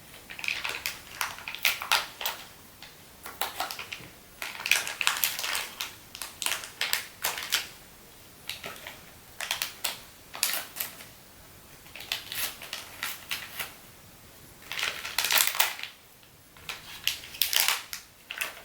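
Plastic packaging being opened by hand, crinkling and crackling in short bouts with pauses between.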